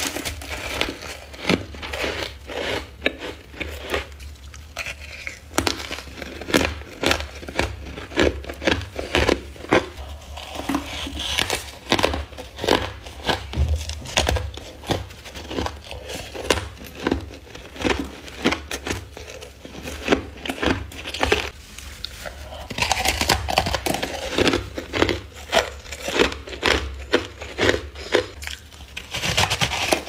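A person biting and chewing powdery freezer frost: a long run of crisp, crackly crunches, a few a second, with short pauses between mouthfuls.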